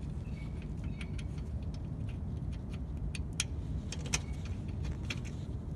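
Light scattered clicks and a couple of sharper metallic clinks, about three and a half and four seconds in, from the hand-held phone and small parts being handled, over a steady low rumble.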